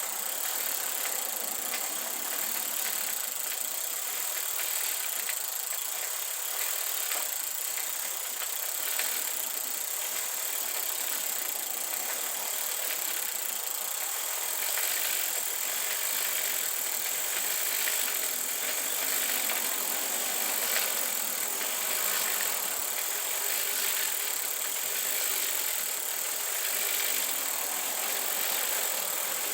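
Bicycle chain running steadily through a Park Tool CM-5.3 Cyclone chain scrubber as the crank is turned, its rotating brushes scrubbing the chain in a bath of water and dish soap.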